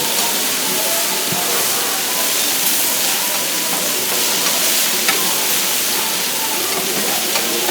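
Beef steak sizzling steadily as it cooks, with faint voices in the background.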